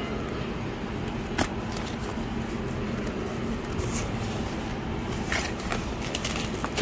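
Cardboard box flaps being pulled open and handled, with one sharp tap about a second and a half in and a few brief crackles near the end. A steady low background rumble runs under it.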